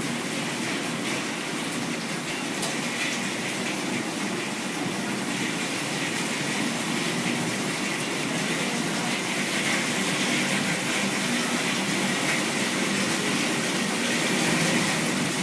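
Torrential storm rain and floodwater rushing along the street, a steady dense hiss of falling and running water, growing slightly louder in the second half.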